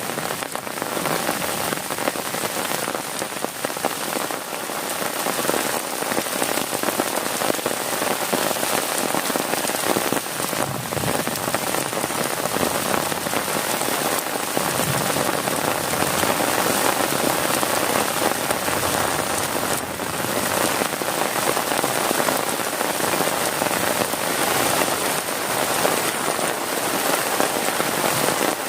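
Heavy rain pelting a tent's plastic tarp steadily, a dense patter of individual drops over a continuous hiss.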